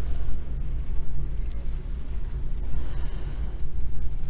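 Plastic shopping cart rolling along a store floor: a steady low rumble with a light mechanical rattle.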